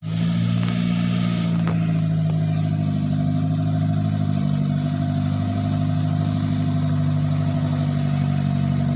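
A vehicle engine running steadily at low, even revs, with a hiss over it for the first second and a half.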